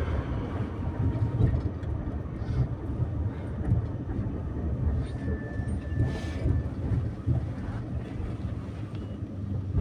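Tram running along its rails, heard from inside the car: a steady low rumble with irregular knocks from the wheels on the track.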